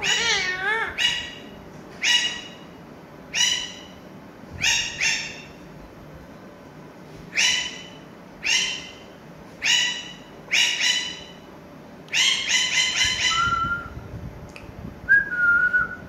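Pet ring-necked parakeets calling: short, harsh squawks about once a second, some in quick runs of two or three. The calls open with a warbling whistle and end with two held whistled notes near the end.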